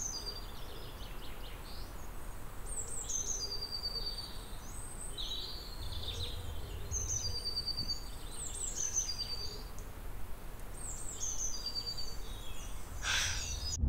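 A songbird sings the same short phrase over and over, every second or two: a falling slur, a held whistle and a quick trill, over a low steady background noise. A brief burst of noise comes near the end.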